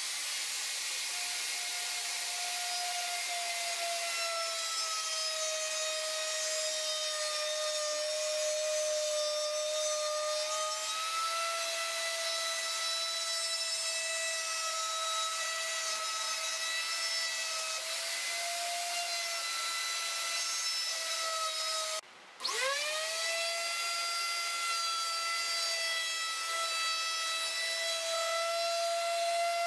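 Electric router cutting into an oak slab: a steady high motor whine whose pitch sags and recovers as the bit bites into the wood. About two-thirds of the way through it cuts out for a moment and a router spins back up with a rising whine, then runs on rounding over the board's top edge.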